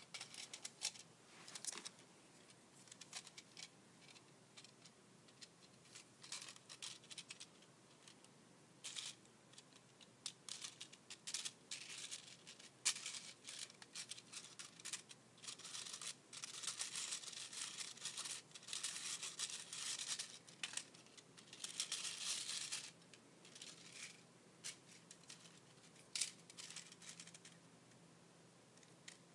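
A 3D-printed PLA gear case being handled by hand on an iPhone 5: faint, irregular plastic scraping, rubbing and clicking, with a busier run of scraping in the second half.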